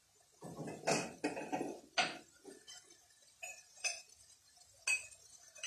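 A metal spoon clinking against kitchen containers while the next spice is fetched: a short scraping rustle at the start, then about six sharp clinks and taps spaced roughly a second apart.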